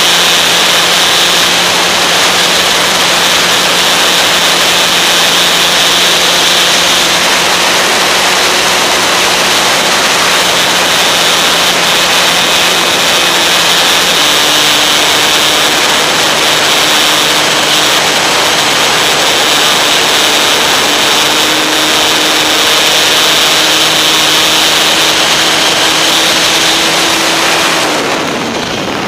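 Onboard sound of a radio-controlled model plane in flight: a steady rush of air over the camera with a steady motor and propeller hum. The hum shifts pitch about halfway through, then slides down and falls away near the end.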